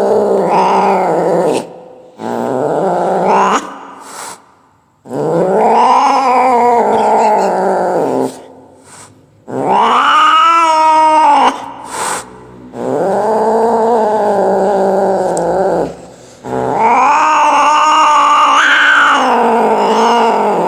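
Cat yowling: about six long drawn-out calls, each a few seconds, rising and then falling in pitch with short pauses between them.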